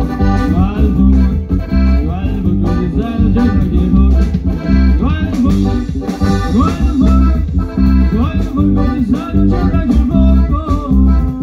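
Live sierreño band music, amplified and loud: an accordion melody over strummed guitars and a steady bass beat.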